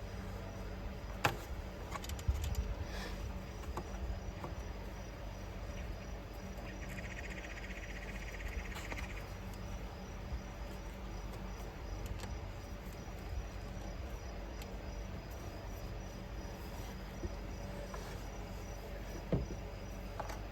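A few light clicks and knocks of hand tools and parts on the engine over a low steady hum, with a short high buzzing trill about seven seconds in.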